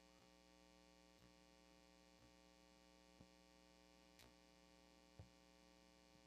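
Near silence: a faint steady electrical hum, with a very faint tick about once a second.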